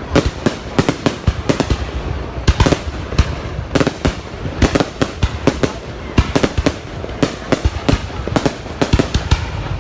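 Fireworks going off in a rapid, unbroken run of sharp bangs and crackles, several a second.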